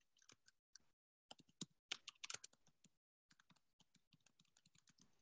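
Faint typing on a computer keyboard: a quick run of key clicks a second or two in, then scattered light clicks.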